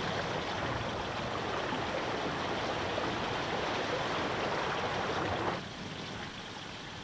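Steady rushing noise that drops suddenly to a quieter hiss about five and a half seconds in.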